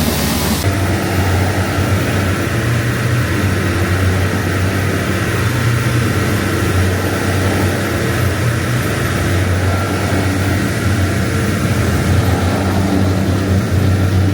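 Heavy diesel engine running steadily with a loud, low drone, as at a concrete pour with a ready-mix truck.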